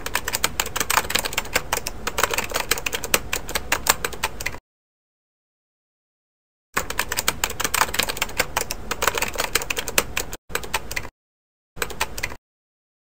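Rapid clattering keystrokes in four edited bursts: a long run of about four and a half seconds, a gap, a run of about three and a half seconds, then two short bursts. Each stops abruptly into dead silence.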